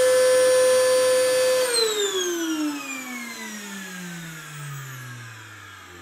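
Vacuum cleaner motor running with a steady whine, then switched off about a second and a half in, its pitch sliding down as it winds down and fades.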